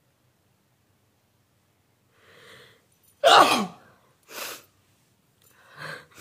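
A woman sneezes once, loudly. A gasping in-breath comes about two seconds in, then the sneeze itself, its voice sweeping down in pitch, followed by a few short breaths. It is a sneeze she has provoked on purpose, and she then says it hurts and her eyes are watering.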